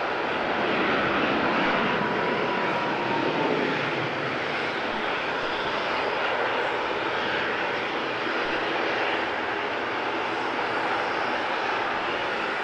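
Boeing 737 MAX's CFM LEAP-1B turbofan engines at climb power, a steady jet roar that fades slightly as the airliner climbs away, with a faint whine dropping in pitch about two seconds in.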